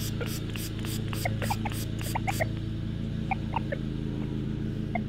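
Lawn mower engine running steadily in the background. Short high chirps are scattered over it, and a fast high ticking, about four a second, stops about two and a half seconds in.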